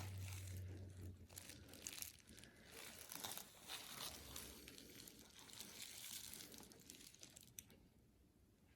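Faint, irregular rustling and crinkling of something being handled, fading near the end.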